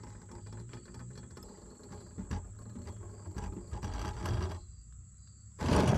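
Backpacking canister stove burning under a steel pot of just-boiled water, with clicks and metal scraping as the stove is shut off and the pot's handle is gripped. The steady burner sound stops about three-quarters of the way through, and a loud clunk comes near the end.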